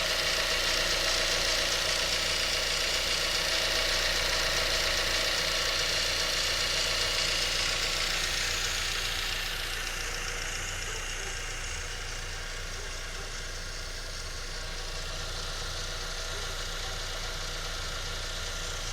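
Ford Fiesta 1.0 Zetec Rocam engine idling, with a repeated "chec-chec-chec" ticking that comes from the oil pump. The noise is a known trait of this engine and does not harm how it runs. The sound gets a little quieter about ten seconds in.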